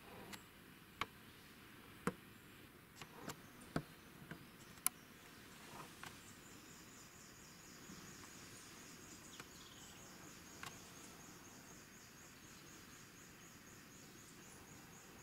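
Faint outdoor ambience: a handful of sharp knocks and taps in the first five seconds, then an insect's high, rapidly pulsing trill that runs for about eight seconds.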